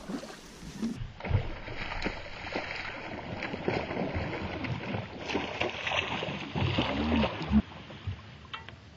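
Small knocks, clicks and water splashes on a fishing boat, with a few seconds of steady hiss under them.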